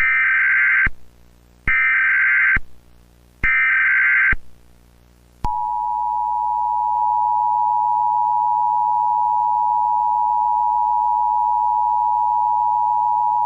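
Emergency Alert System tones: three short bursts of SAME header data, each just under a second long, then the steady two-tone EAS attention signal, held for about eight seconds. Together they announce an emergency alert broadcast.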